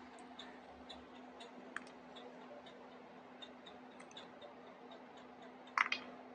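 Faint light clicks of mixed nuts, cashews and almonds, knocking against each other and the plastic tub as fingers dig in and pick them out, then a louder clatter of several quick clicks near the end as a handful drops onto the plate. A steady low hum runs underneath.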